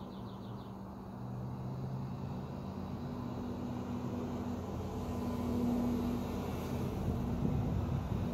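2006 Range Rover Sport Supercharged's supercharged V8 running with the number 7 exhaust resonator removed, a steady low engine hum growing louder as the vehicle approaches, swelling about five seconds in.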